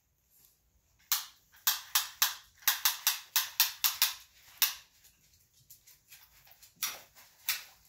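A tape measure being handled and laid across a large plastic-covered diamond painting canvas: a quick run of sharp clicks, about four a second, then two more near the end.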